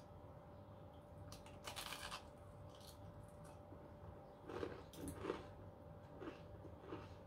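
Crisp cornflake-coated 'Desert rose' cookie being bitten and chewed, faint crunches in a burst about a second and a half in and again around four and a half to five seconds, with a few smaller crunches after.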